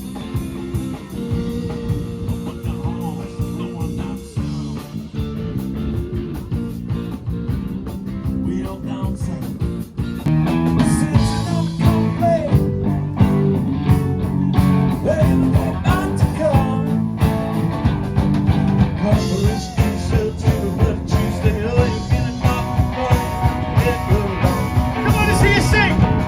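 Live band playing rock music with a steady beat. It gets louder about ten seconds in, and a singer is heard over it.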